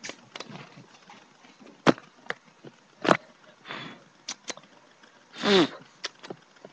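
Close-up scuffling and sharp knocks as a dog plays with a fluffy toy against the phone, with a short vocal sound falling in pitch about five and a half seconds in.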